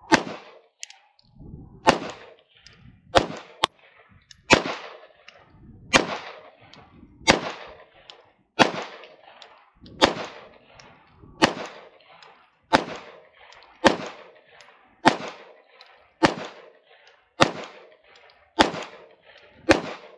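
Shadow Systems DR920 9mm pistol firing about sixteen shots in steady, slow aimed fire, roughly one every second and a bit, each shot followed by a short ringing echo. It runs through the magazine of 124-grain handloads without a trigger-reset hang-up.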